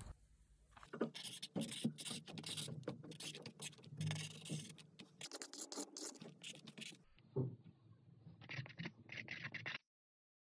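Felt-tip marker scratching across cardboard in a rapid run of short scribbling strokes, which cut off suddenly near the end.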